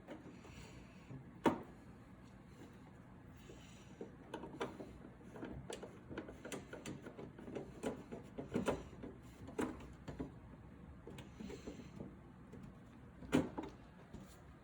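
Plastic parts of a dehumidifier's pump filter housing being fitted back together by hand: scattered clicks, taps and light rattles, with a sharp knock about a second and a half in and another near the end.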